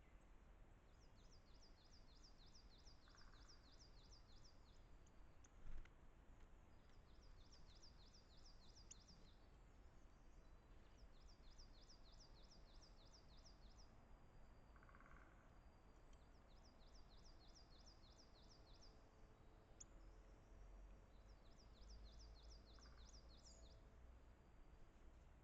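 A distant songbird singing five phrases, each a quick series of repeated high, down-slurred notes lasting two to three seconds, over faint low forest background noise. One sharp click sounds about six seconds in.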